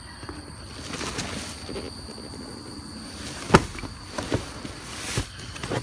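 Rummaging through trash in a dumpster: a few sharp knocks and thuds as items are moved, the loudest about three and a half seconds in, over a faint steady high whine.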